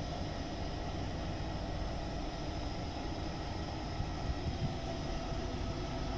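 Central air-conditioning unit running: a steady machine hum with several fixed tones over a rough low rumble.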